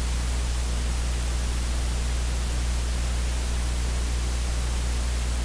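Steady hiss with a low, even hum underneath, unchanging in level, like static or recording noise.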